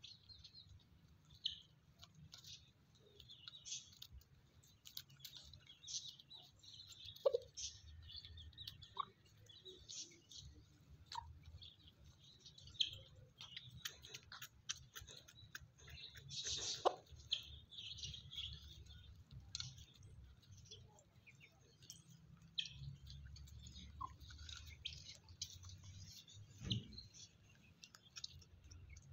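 Small birds chirping: many short, high chirps come and go throughout, with scattered short clicks and taps among them.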